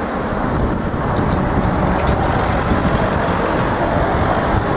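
Road traffic driving over the level crossing close by, cars passing in a steady rushing noise, with a few light clicks around the middle.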